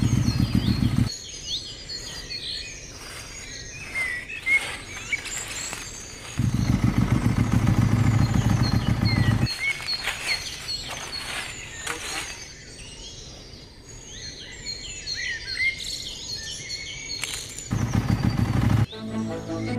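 Motorcycle engine running close by with a low, even pulsing, heard three times: at the start, from about six to nine and a half seconds, and briefly near the end. Birds chirp throughout.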